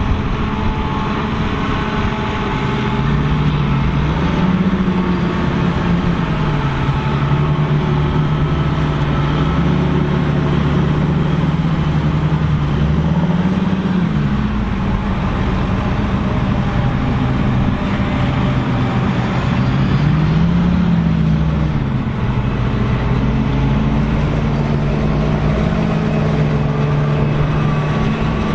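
Tractor engine working hard, its pitch rising and falling back a few times as it is revved. It is typical of a tractor struggling to pull free in deep mud.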